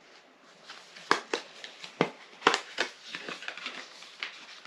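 Packaging of a boxed set of blank cards being opened and handled by hand: crinkling with a few sharp crackles and snaps.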